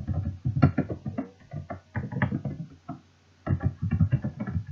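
Background music playing.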